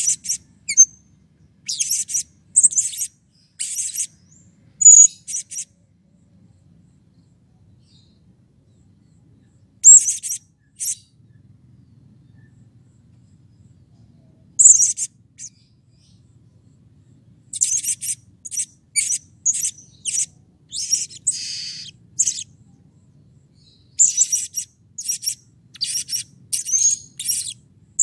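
Male blue-crowned hanging parrot giving short, sharp, high-pitched chirps in quick runs of two to six, with pauses between. There is a quiet stretch about six to ten seconds in, and the calling is busiest over the last ten seconds.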